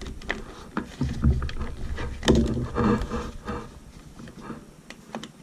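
Handling noise of a Mini Maglite flashlight being tugged and wrestled out of its tight holder in a gift-set box: irregular clicks, knocks and rubbing, busiest in the first three and a half seconds.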